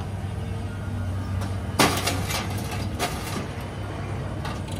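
Scrap metal crashing and clanking as a material handler's orange-peel grapple bites into a pile of scrap. There are two loud bursts about a second apart and a smaller clank near the end, over the machine's steady engine hum.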